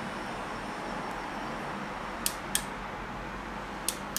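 Handheld smoking gun's small electric fan running steadily with a faint high whine as it pushes smoke through its hose. Two pairs of sharp ticks come about two and four seconds in.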